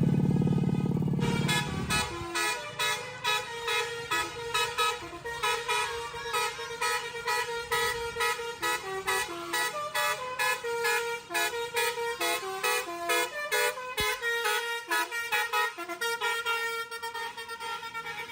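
A bus 'telolet' musical horn, a set of air-horn trumpets: one low held blast, then from about a second in a fast run of short horn notes playing a tune.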